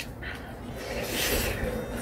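A person slurping spicy instant stir-fried ramyeon noodles: one breathy, hissing slurp about a second in, lasting under a second.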